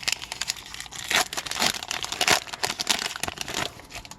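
A hockey card pack's wrapper being torn open and crinkled by hand: dense, irregular crackling that dies down near the end.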